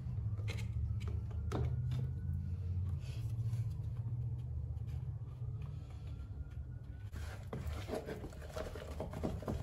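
A stick stirring freshly mixed epoxy resin and hardener in a mixing cup, with light scrapes and taps against the cup's sides that grow busier near the end, over a steady low hum.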